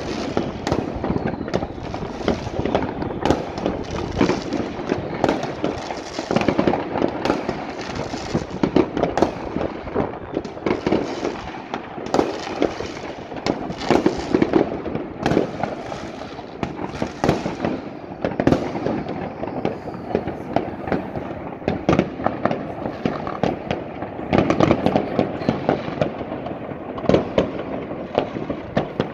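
Many fireworks and firecrackers going off at once, near and far: a dense, unbroken mix of bangs, pops and crackling, with aerial shells bursting overhead.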